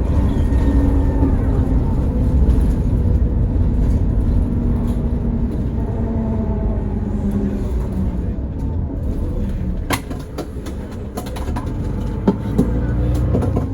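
Mercedes-Benz Citaro O530 bus under way: low engine and road rumble with its ZF automatic gearbox whining, the whine drifting up and down in pitch through the first eight seconds or so. Several sharp knocks and rattles come near the end.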